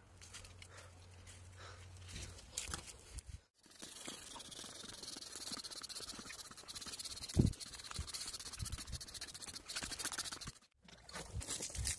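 Trigger spray bottle spraying cleaner onto a motorcycle, a steady hiss with a single thump about midway. There is a low hum before it, and it cuts off suddenly near the end.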